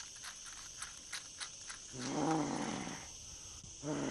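A low, rough growling voice sounds twice: about two seconds in, then again just before the end. Faint clicks come before it.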